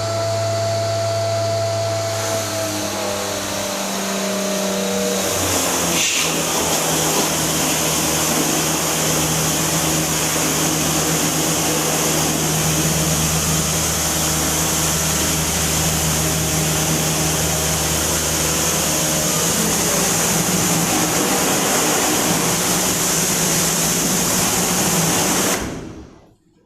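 A motor-driven cleaning machine running steadily with a strong hiss and a low hum. There is a click about six seconds in, and the machine cuts off suddenly near the end.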